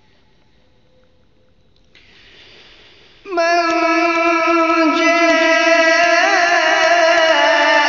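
Quran recitation (qiraat) begins about three seconds in: a qari's voice enters loud on a long, held melodic note whose pitch wavers and ornaments as it is drawn out. Before it there is only faint hiss.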